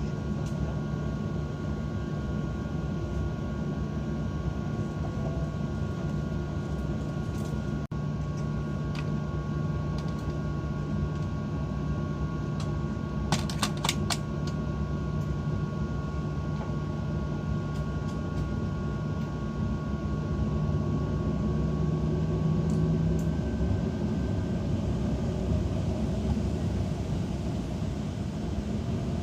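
Airliner cabin noise on the ground before takeoff: a steady hum of engines and cabin ventilation with a low tone that stops about three-quarters of the way through. A short run of clicks comes near the middle.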